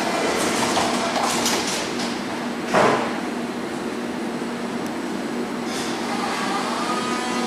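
Berlin U-Bahn train's sliding doors closing, with a loud knock about three seconds in as they shut, over the train's steady hum. Near the end a rising whine starts as the train begins to pull away.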